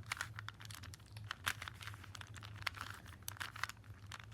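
Plastic Rubik's brand cube being turned by hand: irregular quick clicks and rattles as its layers snap round, over a steady low hum.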